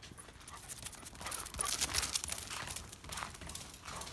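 Footsteps on snow and wet pavement: a quick, irregular run of scuffs and clicks, busiest in the middle.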